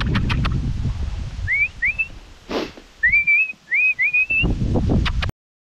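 A person whistling to call a dog: six short rising whistles, two and then four, with rustling and crackling in dry brush at the start and again near the end. The sound cuts off abruptly near the end.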